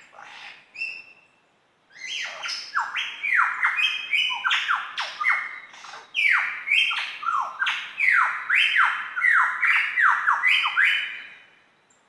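Superb lyrebird singing: a loud, rapid run of whistled notes, each sweeping down in pitch, that begins about two seconds in and stops near the end, after a few shorter calls at the start.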